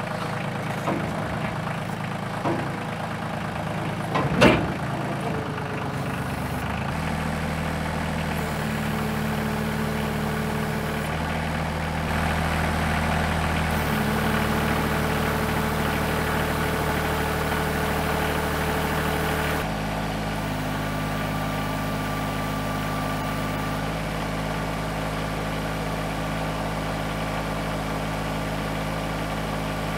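Compact tractor's engine running under load while its front loader lifts the rear of a pickup, the engine note stepping up about seven seconds in and shifting again twice after that, with one sharp knock about four seconds in. The tractor is working at about the limit of what it can lift.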